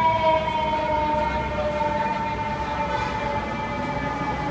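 Fire truck siren in one long wail, its pitch sinking slowly and steadily, over the rumble of city traffic.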